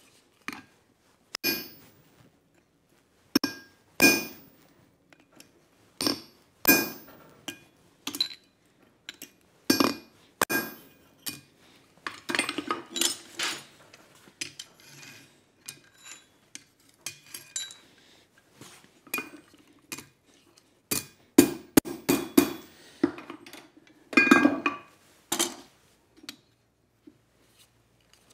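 Hammer blows on a steel hand punch driven into a hot steel bar on an anvil, punching a hole; each strike rings metallically. The blows come about a second apart, with quicker runs of strikes about halfway through and again near the end.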